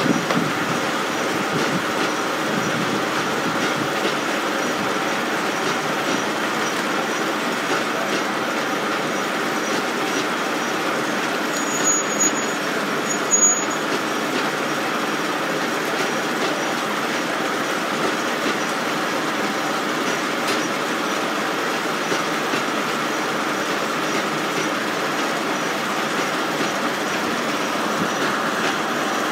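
Reeves sawmill running steadily: the spinning circular head saw and its drive and carriage machinery make a continuous mechanical hum with steady tones. Two brief louder sounds come near the middle.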